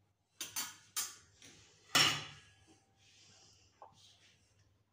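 A metal spatula knocking and scraping against a kadhai of curry gravy: a few sharp clinks in the first two seconds, the loudest about two seconds in, then faint scraping and a last light tap.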